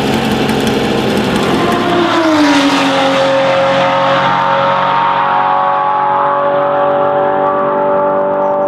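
Porsche racing engine running loud and rough, then about two seconds in its pitch drops and it settles into a steady held note, the sound growing gradually duller.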